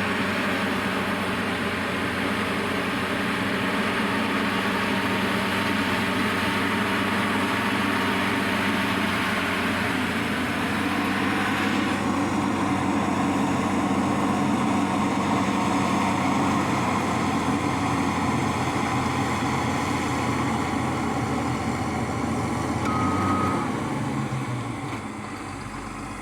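Diesel engine of a heavy earthmoving machine running hard and steady, then easing off toward idle about 24 seconds in. A short high beep sounds just before it eases off.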